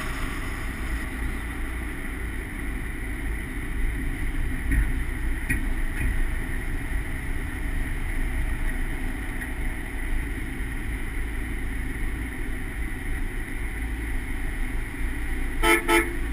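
Chevrolet SSR with a supercharged 454 LSX V8 driving at a low, steady speed: exhaust rumble mixed with tyre and wind noise on an exterior-mounted microphone. A few short knocks near the end.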